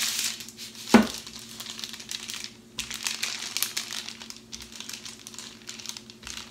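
Parchment paper crinkling and rustling as a wooden rolling pin is pushed back and forth over dough sandwiched between two sheets, with a sharp knock about a second in.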